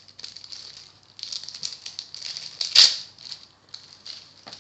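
Crinkling of an Animal Crossing card packet's wrapper as it is handled and torn open, with one louder rip about three seconds in.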